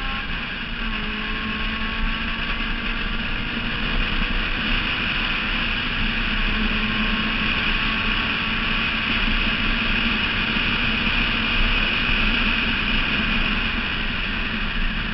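Honda S2000's four-cylinder engine held at a steady high-speed note on track, heard from a camera mounted outside the car under a loud, even rush of wind and road noise. The revs settle about a second in and hold fairly steady after that.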